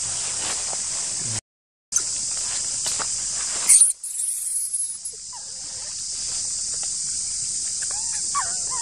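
Steady high buzzing drone of forest insects, which breaks off for half a second about a second and a half in. A brief loud, sharp noise comes just before four seconds, and a few short high calls sound near the end.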